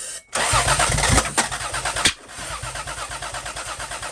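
Toyota Supra's starter cranking the engine with an even, pulsing churn of about five beats a second, plus a sharp click about two seconds in. The engine turns over but does not fire: a no-start.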